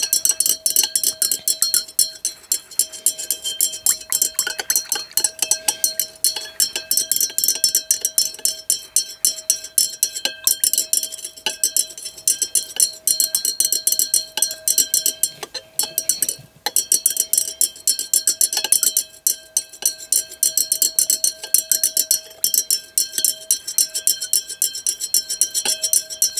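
Glass stirring rod clinking rapidly and steadily against the inside of a glass beaker, stirring citric acid into a clear solution to dissolve it.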